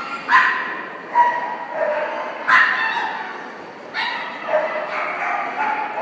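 A dog barking repeatedly in sharp, high yips, several barks each a second or so apart, echoing in a large hall.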